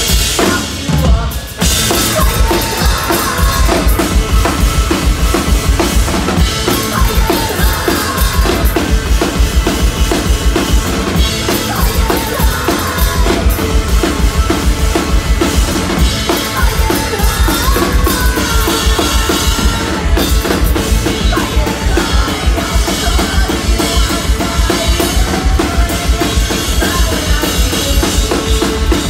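Loud live rock band playing: electric guitars, bass and drum kit, with kick drum and snare keeping a steady beat.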